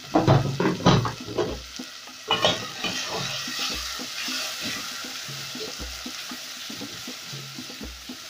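A spatula stirring chopped vegetables into hot tomato paste in an aluminium pot, with several knocks against the pot in the first two and a half seconds, then a steady sizzle as the mixture fries.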